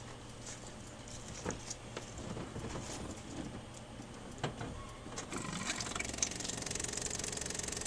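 A few light clicks and knocks, then about five seconds in the starter motor begins cranking the Triumph TR7's 2.0-litre slant-four in a steady, fast rhythm. It turns over but does not fire, because the distributor is disconnected.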